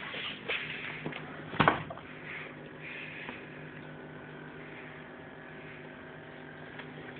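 A sharp knock about a second and a half in and a few lighter taps in the first second, over a steady low hum.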